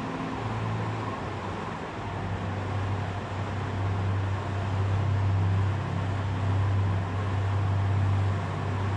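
A steady low hum under a constant hiss, with no distinct events.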